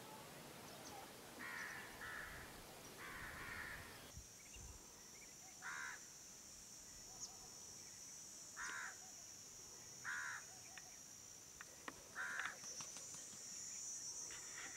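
A crow cawing repeatedly: short, single caws a second or two apart, one longer call drawn out near the start. From about four seconds in, a steady high-pitched hiss or buzz runs underneath.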